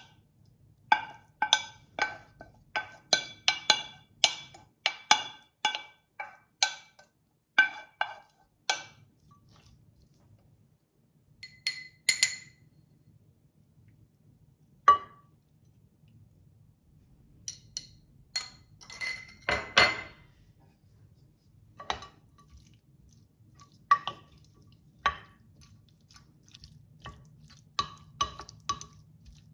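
Wooden spoon and pan knocking against a glass food container as cooked asparagus is scraped into it: a quick run of sharp clinks with a short ring, then scattered single clinks, and near the end light repeated taps of the spoon on the glass while stirring.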